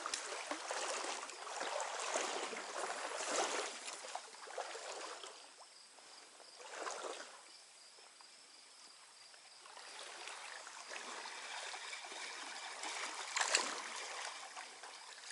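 Flowing water of a small trout stream, an even rushing with a few louder swells and splashes, the loudest about three quarters of the way through.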